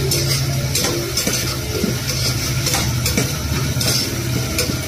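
A perforated metal skimmer spoon stirring and scraping peas, onions and spices in an open pressure cooker, the metal clicking against the pot in irregular strokes over a light sizzle of the frying.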